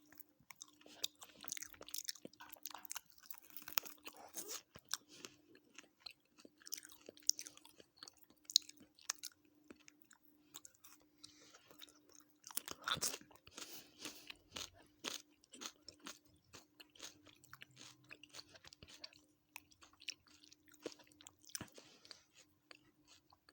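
Close-miked chewing and crunching of a chicken biryani meal, with many sharp wet mouth clicks and smacks and a louder stretch about halfway through. A faint steady low hum runs underneath.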